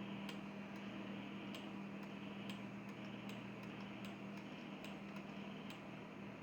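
Faint, sharp ticks at an uneven pace, about one to two a second, over a steady low hum and hiss.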